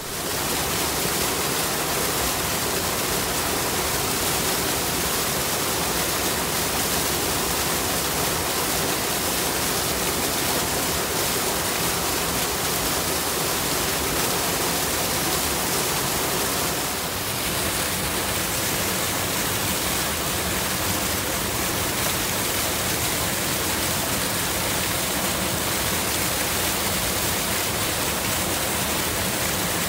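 Rushing river water, a steady, even rush of noise that dips slightly for a moment about seventeen seconds in.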